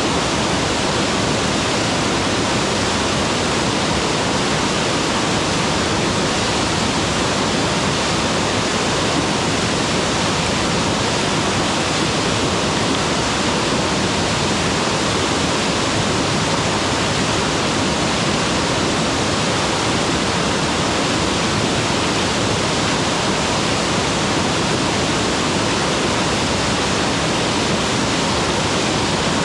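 Mountain waterfall: loud, steady rush of falling water, unchanging throughout.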